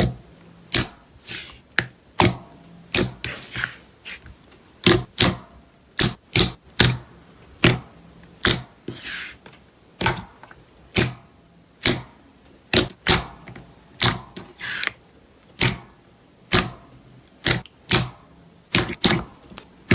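Slime being poked and squeezed by hand, making sharp clicky pops about one or two a second, with a few softer squelches between them.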